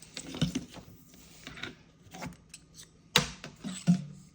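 Irregular clicks, light scrapes and knocks from handling a pistol barrel and cleaning rod while a cleaning mop is run through the bore, with two sharper knocks near the end.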